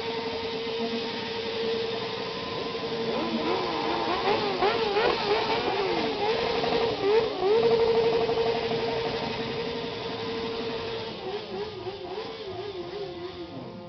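Sport motorcycle engine held at high revs during a burnout, its rear tyre spinning on the pavement. The pitch holds steady, then wobbles rapidly up and down in the middle and again near the end as the throttle is worked, loudest a little past halfway.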